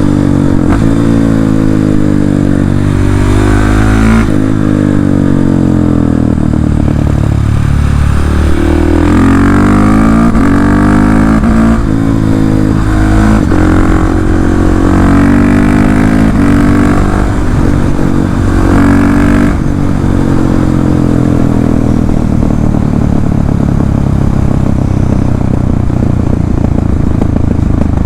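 KTM 690 SMC R supermoto's single-cylinder engine through an Arrow exhaust with the dB-eater removed, accelerating and easing off on the road. Its pitch climbs and drops repeatedly over the first twenty seconds or so, then runs steadier.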